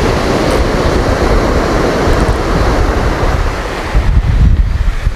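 Surf breaking and washing up the beach, with strong wind buffeting the microphone in a heavy rumble that gusts harder about four seconds in.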